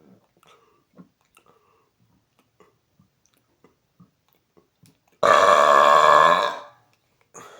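A few faint clicks and gulps, then about five seconds in a man's long, loud, pitched burp that starts abruptly and tails off after about a second and a half. It is a deliberate air-swallowed burp, which reads about 119.5 dBC on a sound level meter.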